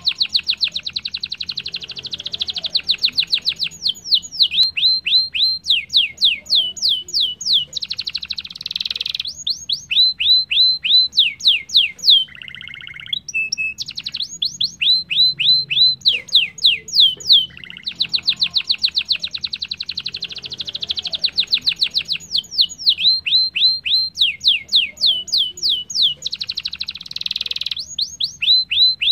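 Domestic canary singing a long, fast song of rapid high trills and runs of quick sweeping notes, changing between dense buzzing trills and slower runs of several notes a second, with a short lower-pitched phrase about twelve seconds in.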